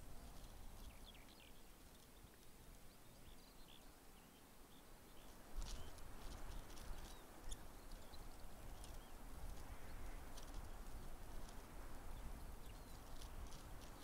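Quiet outdoor ambience of small birds chirping and calling in short, scattered notes. A low rumbling noise comes in about five and a half seconds in and continues under the calls.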